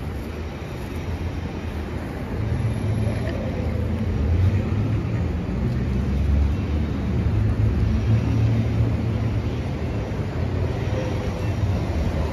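Road vehicles passing close by on wet asphalt: engine hum and tyre noise swell about two seconds in and stay strong through the middle as an SUV goes past, with a pickup truck coming by near the end.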